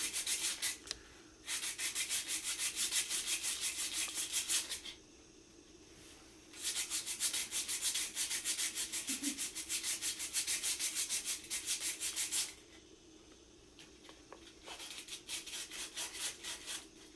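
Sandpaper rubbing on a 3D-printed plastic model part in quick, regular back-and-forth strokes, smoothing it before painting. It comes in three bouts with short pauses between them.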